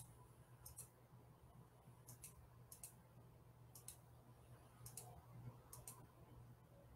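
Faint computer mouse clicks, each a quick double tick of press and release, coming about once a second over a low steady hum.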